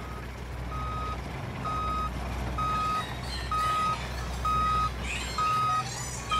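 Backup alarm beeping about once a second, single-pitched beeps over a low steady truck-engine rumble. It is a heavy-vehicle sound effect laid over a toy LEGO Technic forklift, which makes no sound of its own.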